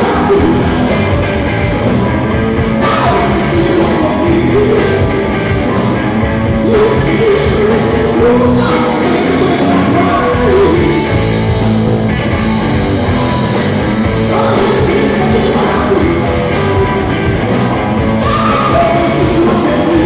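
Blues-rock band playing live: electric guitar and bass under a man singing.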